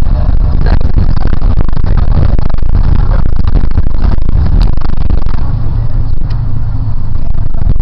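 Loud, steady engine and road rumble inside a moving school bus.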